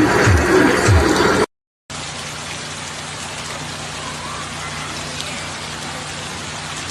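Background music with a steady beat that breaks off about a second and a half in. A brief silence follows, then the steady hiss of heavy rain.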